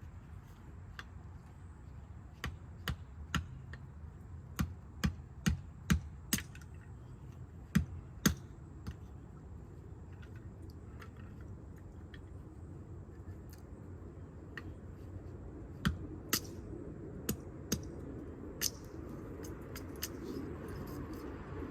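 Wood campfire crackling: sharp, irregular pops, a few close together then spaced out, over a steady low background hiss.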